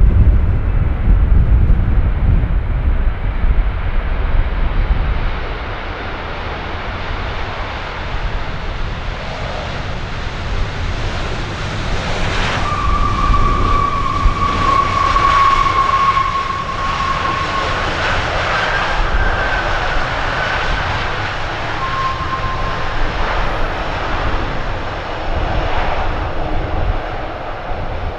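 Jet airliner passing, its engine noise swelling to a peak midway with a steady whine, then easing off. A heavy low rumble fills the first few seconds.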